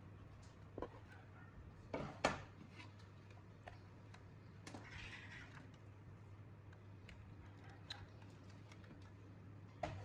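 Scattered clicks and knocks of tools and parts being handled, a few seconds apart, the loudest a double knock about two seconds in, over a low steady hum.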